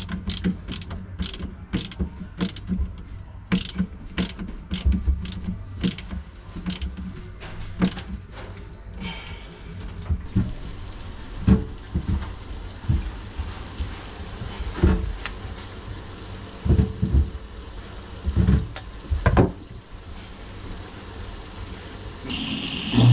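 A ratchet tool being worked in steady strokes, giving sharp clicks about two to three a second for the first nine seconds or so, then scattered knocks and thumps of tools and parts, during a garbage disposal installation.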